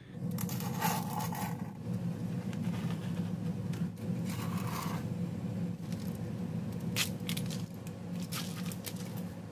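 GatorSkinz non-skid sheet being cut with a blade, in a few separate scraping strokes, over a steady low hum.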